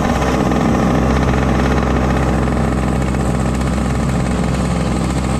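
Racing kart engine running steadily at low revs as the kart rolls slowly after the race, heard from the driver's seat.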